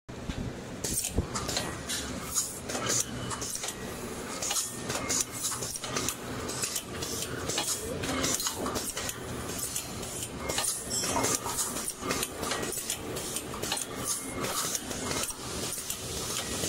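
Automatic twin-hopper weighing and filling machine running, with irregular sharp clicks and rattles from its pneumatic gates and cylinders and from product dropping into jars, over a steady low machine hum.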